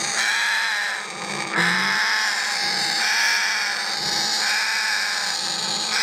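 Congo African grey parrots in their nest box giving harsh, noisy calls in back-to-back stretches, the adults' defensive noise at the nest.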